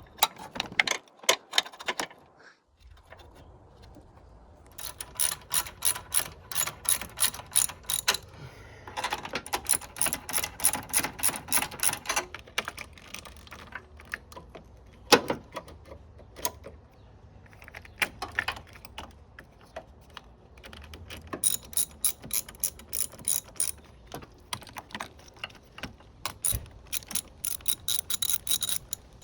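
Ratchet wrench clicking in several runs of quick, even clicks with pauses between, with a few single sharper knocks, the loudest about halfway through.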